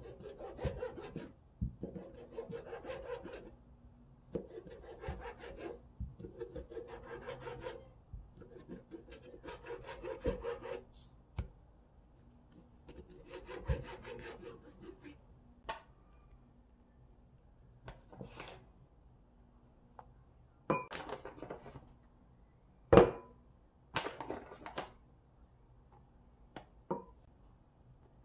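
Kitchen knife sawing through a cleaned swordtip squid on a plastic cutting board, in a run of strokes each about a second long. In the second half there are scattered sharp knocks of the blade on the board, one much louder than the rest late on.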